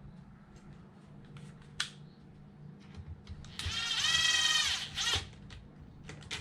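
Light clicks and taps of RC car parts being handled and fitted, with one high-pitched squeak lasting about a second midway, as a side skirt plate is pressed onto the chassis until it sits flush.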